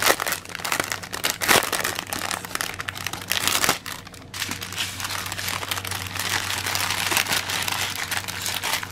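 A clear plastic bag and a strip of sealed plastic packets of diamond-painting rhinestones crinkling as they are handled and slid back into the bag. The crackly rustling is loudest in the first few seconds, drops briefly about four seconds in, then goes on softer.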